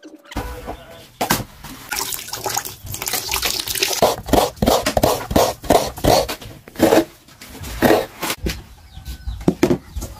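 Coconut meat being scraped on a hand coconut grater: a quick, uneven run of scraping strokes, several a second, with shreds falling into a plastic tub.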